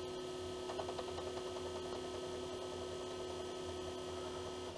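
Commodore floppy disk drive's motor spinning with a steady hum, started by the diagnostics cartridge's reverse-knock test before the head begins to knock.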